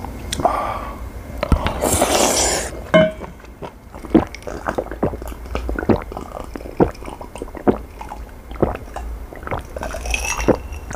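Close-miked eating: a spoonful of rice and soybean-paste stew slurped and chewed with wet, squishy mouth sounds. Then a run of short gulps and swallowing clicks as a drink is swallowed from a glass.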